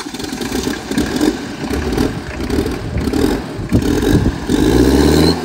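Perkins diesel engine of a motorized picnic table running and being revved in short blips, then held at high revs near the end.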